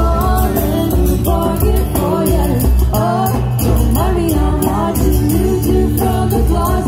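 Live acoustic music: a man singing into a microphone while strumming an acoustic guitar, loud and steady.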